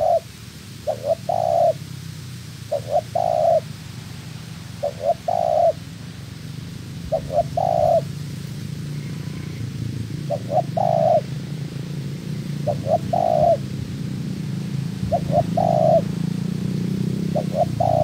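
Spotted dove cooing in a steady repeated song, about eight phrases each of two quick notes and a longer note, a little over two seconds apart. A steady low hum runs underneath.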